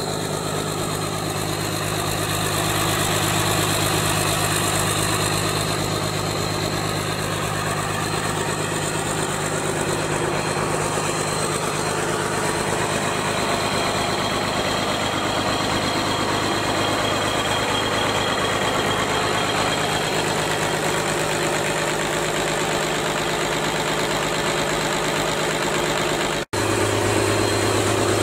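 Freshly rebuilt Mercedes-Benz OM366 inline-six diesel engine idling steadily, with a momentary dropout about two seconds before the end.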